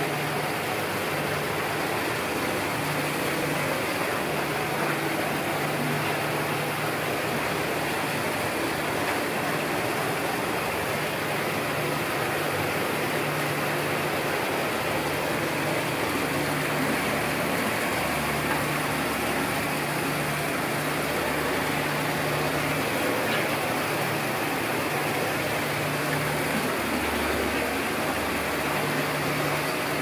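Steady rushing of an artificial waterfall pouring into an otter exhibit pool, with a low hum that comes and goes underneath.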